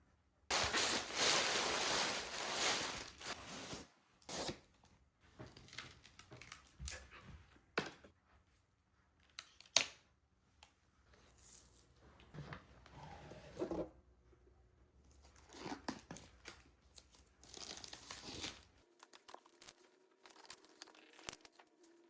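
Packaging being torn open and rustled by hand, with a long loud tear about half a second in, then shorter tears and crinkles and a sharp snap near the middle.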